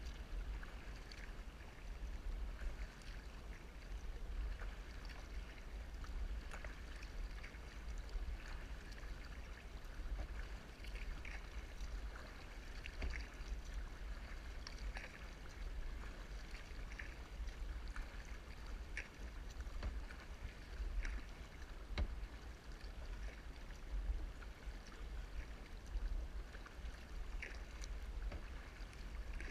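Kayak paddle strokes: the blades dipping and pulling through calm lake water with small splashes and drips, swelling every couple of seconds, over a steady low rumble.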